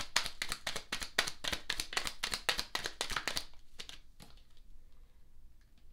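A deck of tarot cards being shuffled by hand, a fast run of card flicks that stops about three and a half seconds in, followed by a couple of light taps as cards are laid down on the table.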